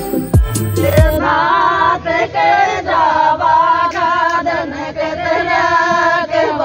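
A group of women singing a Meena folk wedding song (ladies' geet) together, several voices on one melody. Two short low thuds come in the first second, just before the singing starts.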